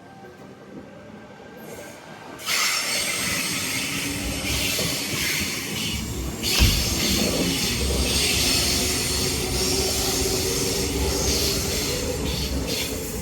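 Sydney Trains Tangara electric train passing through the station, wheels running on the rails. The noise jumps up suddenly about two and a half seconds in as the train reaches the microphone, there is a single thump about six and a half seconds in, and the noise eases near the end.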